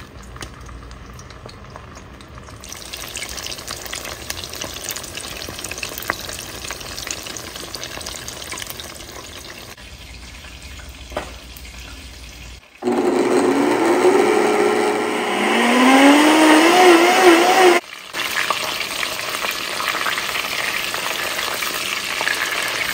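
Koobi (dried salted tilapia) frying in palm oil in a pot, a steady sizzle. For about five seconds in the middle, after a sudden jump, the sizzling is much louder and carries rising whistle-like tones, then it drops back to the steadier sizzle.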